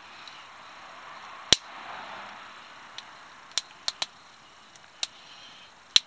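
A few scattered sharp clicks and knocks over a faint hiss, the loudest about a second and a half in and a quick cluster of smaller ones around four seconds.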